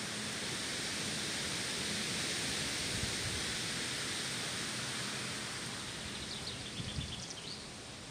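Steady outdoor hiss, with two soft low thumps and a short rapid bird trill near the end.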